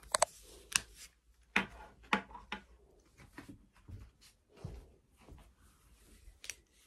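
Handling noise: irregular sharp clicks and light rustles of small objects being picked up and moved, loudest in the first second and a half, with one more click near the end.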